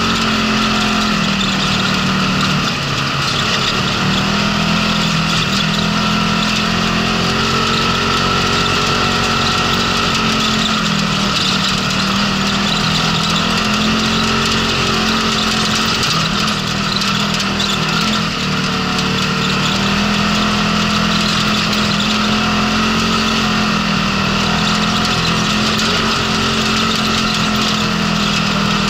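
Polaris RZR side-by-side's engine running continuously under way on a rocky dirt trail, its pitch dipping and recovering several times with the throttle, over steady tyre and gravel noise.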